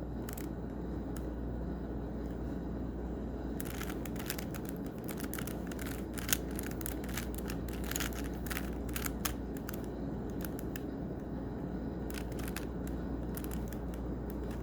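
A Rubik's Cube being turned quickly by hand: runs of rapid plastic clicks as the layers snap round, starting a few seconds in, pausing, then resuming near the end, over a steady low room hum.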